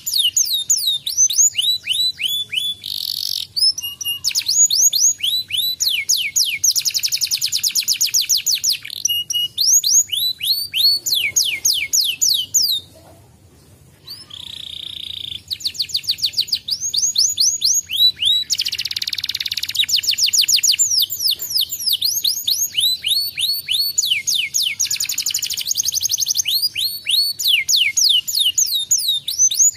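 Domestic canary singing: long, fast trills of repeated falling notes with quicker rolling passages, breaking off briefly about thirteen seconds in before the song resumes.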